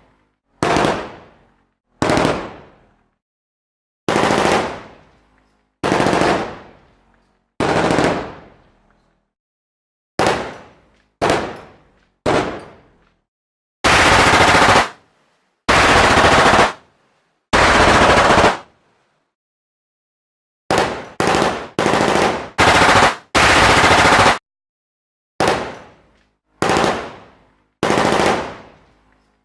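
Machine gun firing a series of separate bursts with silence between them. Most are short bursts that fade out with an echoing tail; three longer sustained bursts of about a second each come around the middle, followed by a quick cluster of bursts.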